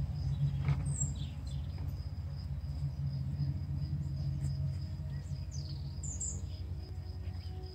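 Small birds chirping outdoors, a few short high chirps about a second in and again around six seconds in, over a steady high insect trill. A continuous low rumble, louder than the birds, runs underneath.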